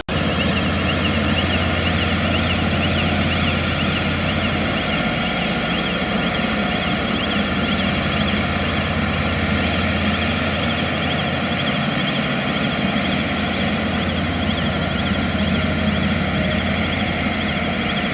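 Cometto box-girder transporter running: its heavy engine hums steadily while a high warbling warning alarm repeats over it.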